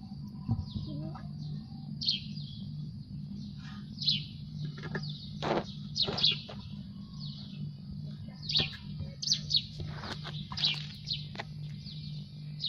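Small birds chirping, a string of short falling chirps every second or less, over a steady low hum.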